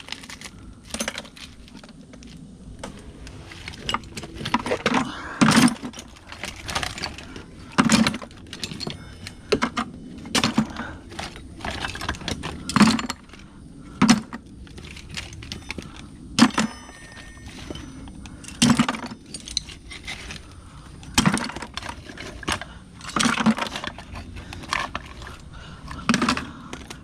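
Loose metal tools clanking and clinking, picked up and dropped into a bucket or pile in about a dozen separate, irregular clatters.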